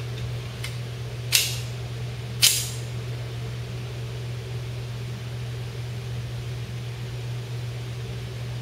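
Two short, sharp metallic clacks about a second apart, with a faint click just before, from the Norinco .45 Commander pistol being handled as it is made ready to fire. A steady fan hum runs underneath.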